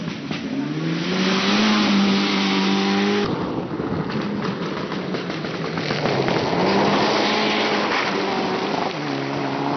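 Rally cars on a gravel stage going by at full throttle in several passes: an engine note climbs and holds high, then gives way to the hiss of tyres and thrown gravel before another engine note comes in.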